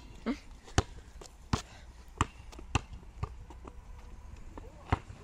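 Basketball dribbled on an asphalt court: a regular run of bounces, about one every 0.6 seconds, for the first three seconds or so, then a pause and one more knock near the end.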